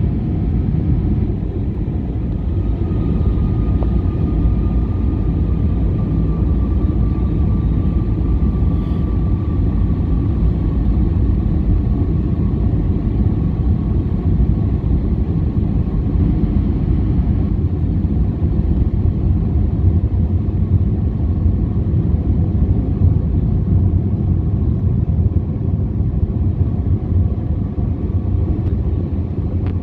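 Steady cabin rumble of an Airbus A321 airliner on approach, heard inside the cabin from a seat behind the wing: engine and airflow noise, with a faint whine that drifts slowly lower in pitch over the first ten seconds or so.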